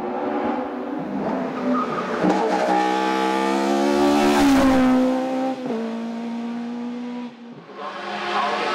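Race car engine at high revs on a hillclimb, its pitch climbing to the loudest point about halfway through, then dropping and holding steady. After a brief dip near the end, another engine note rises in.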